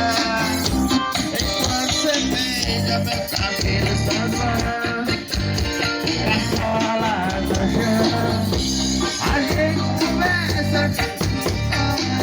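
Upbeat music with a steady beat, a singing voice, guitar and shaker.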